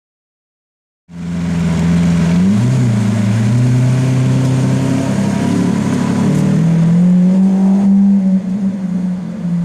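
Mercedes-Benz C63 AMG V8 exhaust, starting suddenly about a second in, accelerating hard with its pitch climbing in steps, then easing off near the end.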